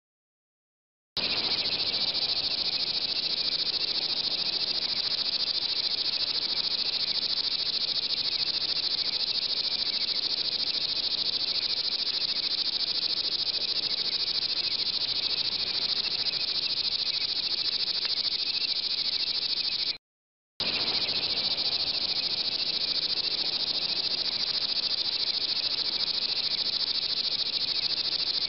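Steady, high chorus of insects that sets in suddenly about a second in, with a brief cut-out about two-thirds of the way through.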